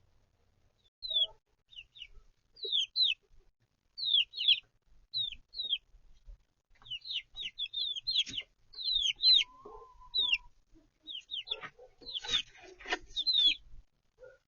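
Young chicks peeping: many short, high chirps that slide downward, coming in quick runs from about a second in and growing busier later. A few knocks or scratches are mixed in during the second half.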